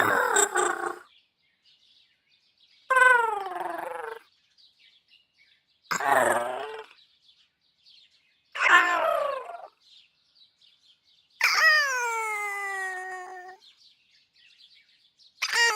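Cute synthesized robot ('droid') vocalizations from the Bleep sound library: five separate short whimpering calls with pauses between them, each sliding down in pitch, the fifth longer with a slow downward slide, and a sixth starting near the end.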